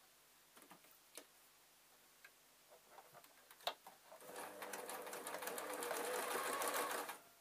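Electric domestic sewing machine stitching through layered fabric. It starts about four seconds in, runs steadily at a fast even rhythm for about three seconds, and stops just before the end. Before it there are a few light clicks from handling the fabric at the machine.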